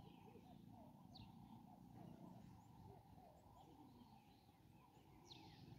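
Faint outdoor quiet with scattered small bird chirps and twitters, one sharper sweeping call a little after five seconds in.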